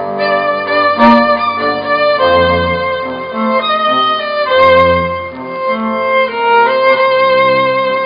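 Live acoustic music: a violin playing a slow melody of long held notes over an acoustic guitar accompaniment.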